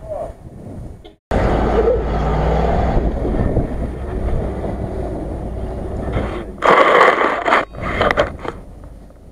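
Land Rover Discovery off-roader driving through thick mud, its engine running steadily under load after a short break about a second in. Near the end it gives way to a louder rushing noise lasting about a second, followed by a few shorter ones.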